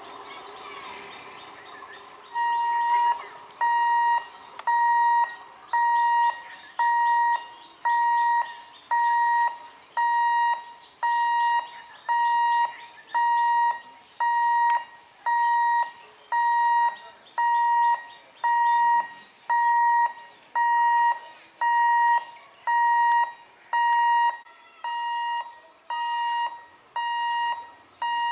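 Railway level crossing warning alarm beeping, one steady electronic tone about once a second, starting a couple of seconds in, signalling that a train is coming and the gate is closing. Before it begins, the rumble of a passing EMU train fades away.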